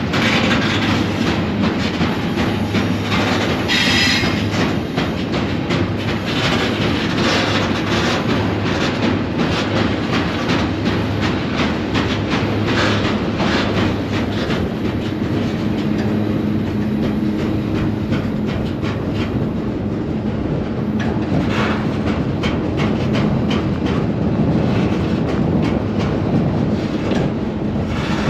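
Freight train rolling along, heard from aboard a car: a steady rumble of steel wheels on rail with constant rattling and clanking, and a brief high squeal about four seconds in.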